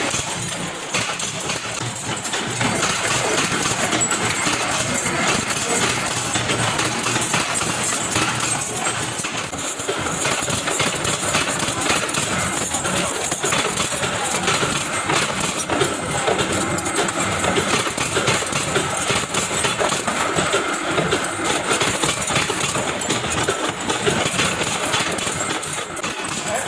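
Factory machinery running steadily, with a continuous mechanical drone and dense, rapid metallic clicking and clatter.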